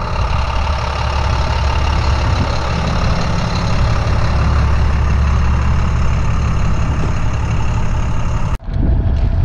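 International 4300's DT466 diesel engine running steadily with a deep, even rumble. About eight and a half seconds in, the sound breaks off abruptly and a new stretch of similar running begins.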